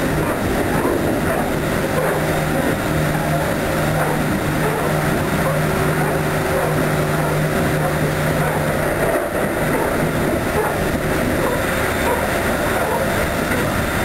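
Keikyu 2100 series electric train running at high speed, about 115 km/h, heard from inside a cab. The running noise is continuous, with a low steady hum that breaks off briefly about two-thirds of the way through.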